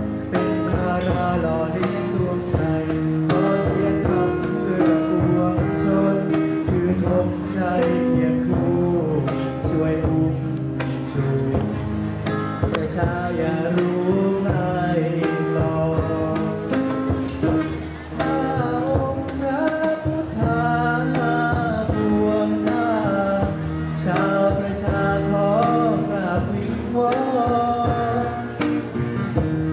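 A man singing a Thai song into a microphone, accompanied by a strummed acoustic guitar with a steady beat on a cajón and a hand shaker.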